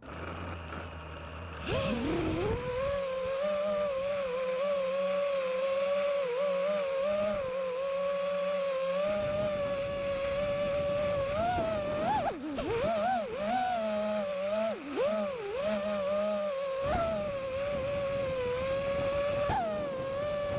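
FPV quadcopter drone's motors and propellers spinning up about two seconds in, then a steady high whine that swings up and down in pitch with throttle changes in the middle stretch.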